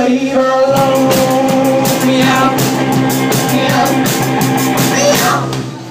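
Live rock band playing loud: drum kit with cymbals, guitar and a woman singing into a microphone. The music stops shortly before the end.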